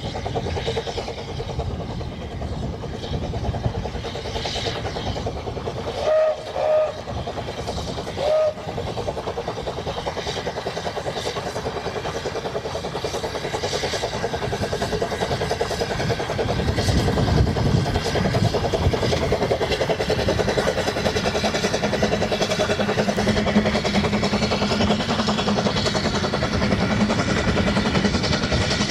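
Narrow-gauge steam train running, giving three short whistle toots about a quarter of the way in. The running noise grows louder in the second half.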